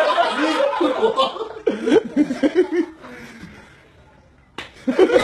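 Men laughing and chuckling in bursts, dying down after about three seconds, then a single sharp smack near the end followed by more laughter.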